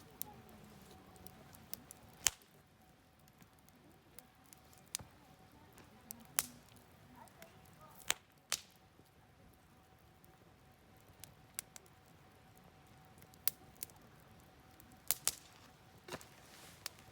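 Wood campfire crackling, with sharp pops and snaps at irregular intervals, several close together near the end, over a faint steady hiss.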